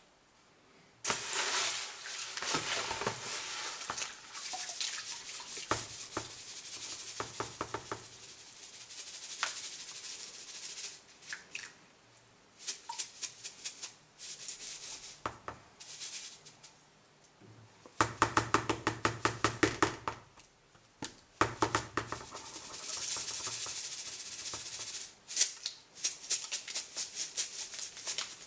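Activated charcoal granules shaken in a wire-mesh sieve over a plastic bucket: a gritty rattling hiss that comes in stop-start bursts of quick shakes, about five a second at times.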